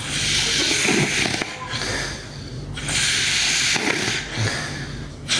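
Girl snoring in her sleep: slow, noisy breaths, three in all, the last one longer.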